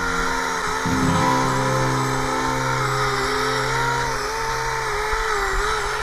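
Greenworks 40V brushless cordless chainsaw cutting through a large log: its electric motor whine wavers up and down in pitch as the chain loads and frees in the wood, over the rasp of the chain cutting.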